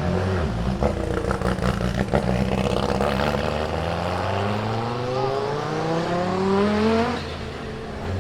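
Turbocharged 2.2-litre five-cylinder engine of an Audi 90 Quattro IMSA GTO race car accelerating hard. Its pitch climbs steadily for about four seconds, then falls away near the end, with a few sharp cracks in the first couple of seconds.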